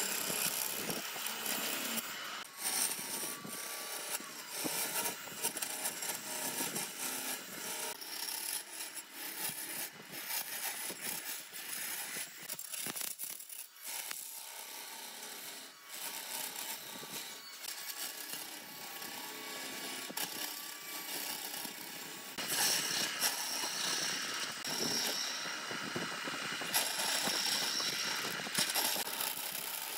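Power tool cutting wood: an uneven scraping hiss with a faint steady motor whine through long stretches, getting louder about two-thirds of the way through.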